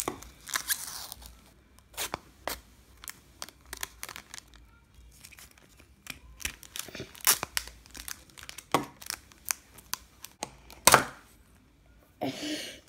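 Paper label seal being peeled and torn off a plastic surprise capsule: many short, irregular scratching and tearing sounds. About eleven seconds in comes a loud snap as the capsule's halves come apart, followed by plastic wrapping crinkling near the end.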